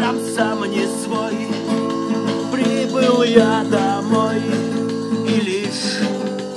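Acoustic guitar strummed in steady chords, playing a rock song. The sound is sustained, with the strings ringing on.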